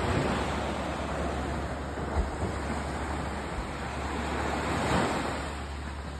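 Small waves breaking and washing up a sand and pebble shore, with a swell of surf just after the start and another about five seconds in. A low wind rumble on the microphone runs underneath.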